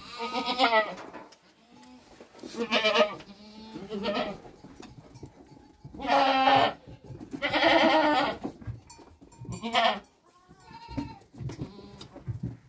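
Sheep bleating, about seven calls of different pitches from several animals in the flock, each under a second long with a wavering tone.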